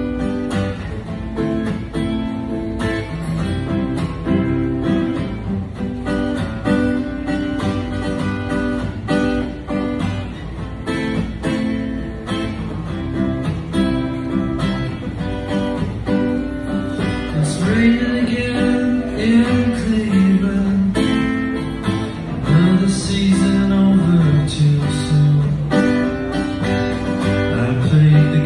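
Song intro on strummed guitar, with a man's singing voice coming in about two-thirds of the way through.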